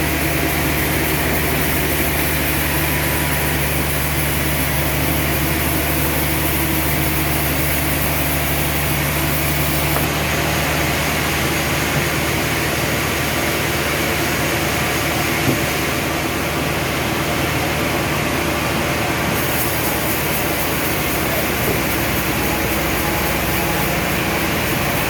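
Sawmill machinery running steadily, a constant low engine drone with a broad even noise over it.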